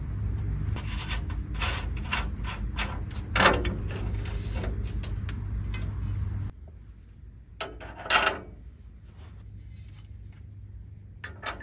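Metal clinks and knocks as a new metal fuel-tank strap and its bolts are handled and hung from a pickup's frame, with a sharper knock about a third of the way in and another past the middle. A steady low hum under the first half drops out about two-thirds of the way through.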